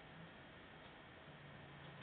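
Near silence: room tone with faint hiss, and a faint steady low hum that comes in about two-thirds of the way through.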